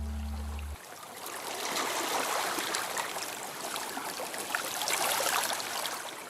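Running, trickling water with many small splashes, fading out near the end. A held low note of background music cuts off abruptly under a second in.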